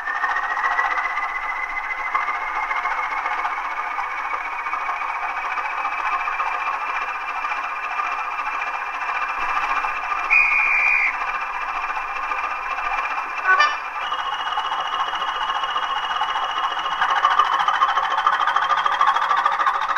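Sound-fitted Bachmann Class 20 model diesel locomotive playing its engine sound: a steady diesel running with a high whine that climbs slowly in pitch. About ten seconds in comes a short horn toot and then a click. The whine then steps up and keeps rising.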